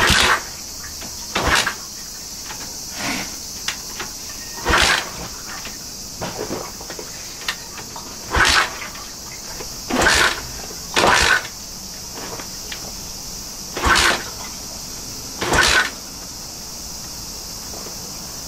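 Honda Dream 50's kick starter being kicked over and over, about ten kicks, one every one to two seconds. Each is a short mechanical clatter of the single-cylinder engine turning over without catching: the engine will not start.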